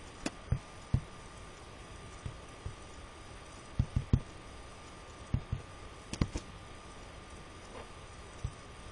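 Computer mouse clicks picked up by the microphone: scattered single clicks, a quick run of three about four seconds in, and pairs about five and six seconds in, over a faint steady hiss with a thin steady tone.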